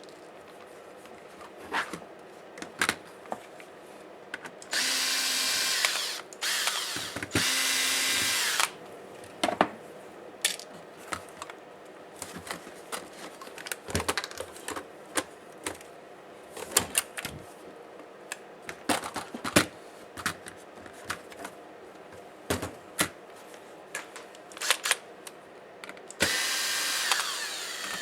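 Small electric screwdriver running in short bursts, twice about five to eight seconds in and again near the end, backing out laptop screws. In between, light clicks and taps of small screws and plastic parts being handled.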